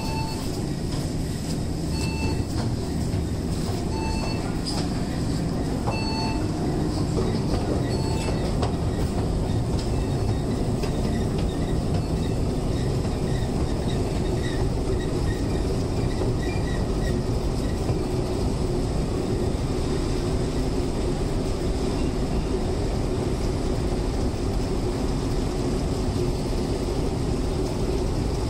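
Steady low rumble of a long metro-station escalator running, with a steady hum coming in after about eight seconds. Over the first eight seconds an electronic beep repeats about every two seconds.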